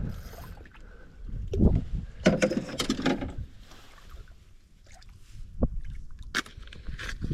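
Wind buffeting the microphone in uneven gusts, with scattered rustles and a few sharp knocks from handling.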